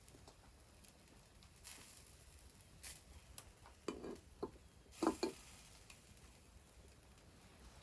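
Scattered small clicks and scraping handling noises, a cluster of them about four to five seconds in, over a faint steady background.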